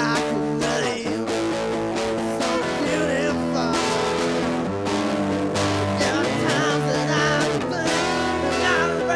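Rock band instrumental break with a guitar playing bending, wavering lead lines over sustained chords.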